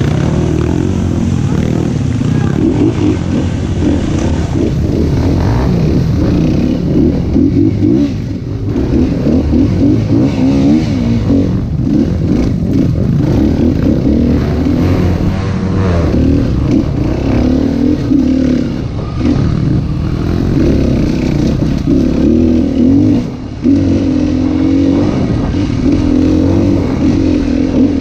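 Dirt bike engine heard from on the bike, its revs rising and falling constantly as the throttle is worked along a rough trail, with brief dips where the throttle is closed.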